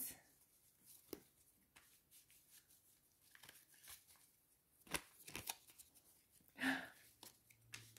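A deck of cards being shuffled and handled: faint scattered flicks and taps, with a couple of sharper clicks about five seconds in.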